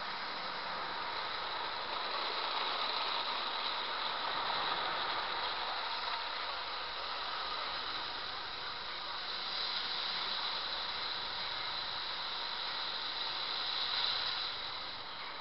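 Automatic car wash heard from inside the car: rotating cloth brushes scrubbing and water spraying against the windscreen and body, a steady hissing wash. It swells about ten seconds in, is loudest near fourteen seconds, then eases off.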